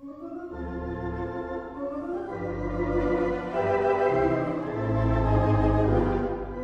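Organ music starting up: sustained chords over deep bass notes, growing louder over the first few seconds.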